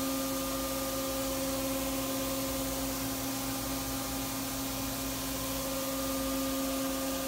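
Powered-up Daewoo Puma 2500LM CNC turn-mill center standing idle: a steady electrical hum with several fixed tones over a constant hiss.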